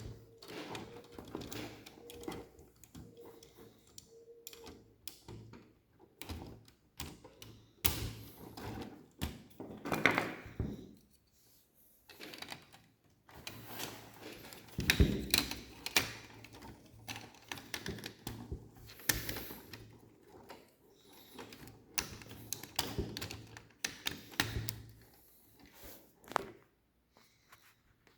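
Lego Technic pieces being handled and pressed together: irregular plastic clicks, taps and short rattles, with louder knocks about ten and fifteen seconds in.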